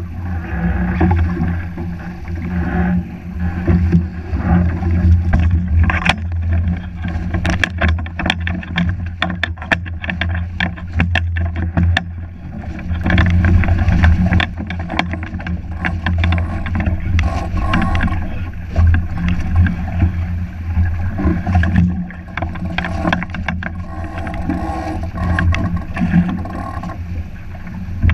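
Wooden Pati Català catamaran sailing through choppy water: water rushing and slapping against the hull with many sharp knocks and splashes, over a steady rumble of wind on the microphone.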